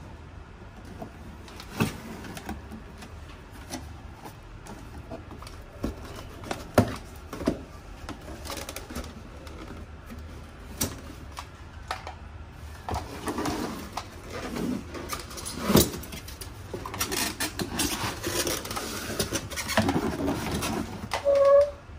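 Cardboard box being handled: flaps opened and closed, cardboard scraping and sliding, with scattered taps and knocks, busiest in the second half. Near the end comes a brief low pitched sound, the loudest moment.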